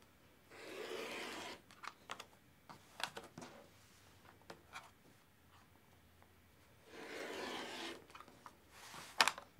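Rotary cutter slicing through quilted fabric and batting along an acrylic quilting ruler, trimming the edge: two cuts of about a second each, one about half a second in and one near the end. In between, short clicks and rustles as the ruler and fabric are moved.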